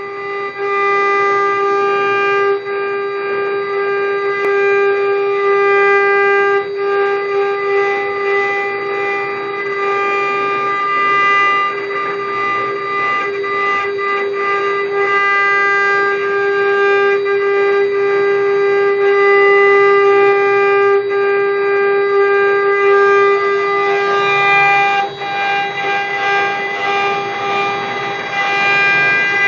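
Spindles of a four-spindle CNC router with rotary axis carving wooden cylinders: a loud, steady high-pitched whine with the noisier, uneven sound of the bits cutting into the wood.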